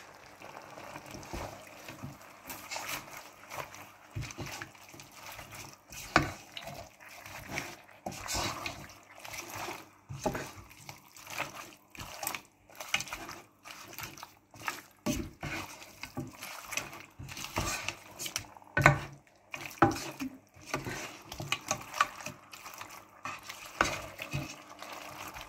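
Raw seasoned chicken pieces being stirred and turned in a pot with a silicone spatula: irregular knocks and scrapes of the spatula against the pot and the meat, with the wet sound of the pieces moving.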